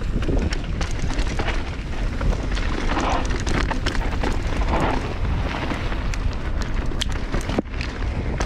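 Mountain bike ridden down a rough dirt trail: heavy wind rumble on the microphone, tyre noise and a constant clatter of rattling clicks from the bike over the bumps.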